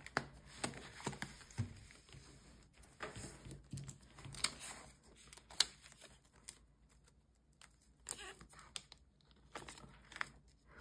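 Light rustling and crinkling of clear plastic cash envelopes and polymer banknotes being handled in a budget binder, with scattered soft clicks and taps.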